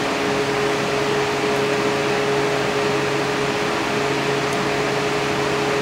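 Steady hum and hiss of a running fan or air-conditioning unit, with a couple of faint ticks.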